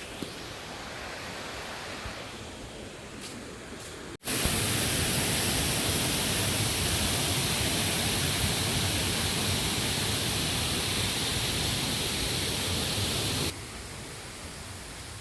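Waterfall rushing: a steady hiss of falling water that cuts out for an instant about four seconds in, comes back much louder, and drops back to its earlier level near the end.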